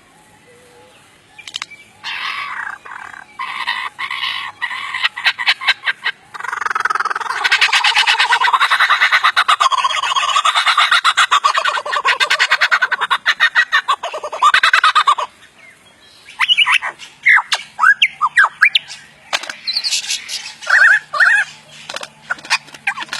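A talking pet bird squawking. It gives short calls, then a long harsh rapidly pulsing screech from about a quarter of the way in until past the middle, then a string of short sharp chirps and whistles near the end.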